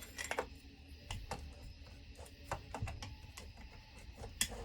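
Irregular light clicks and taps of a small metal tool picking debris out of chainsaw screw heads, a handful of sharp ticks spread over the few seconds.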